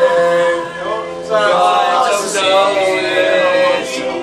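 Group of men singing loudly together, holding and bending long notes.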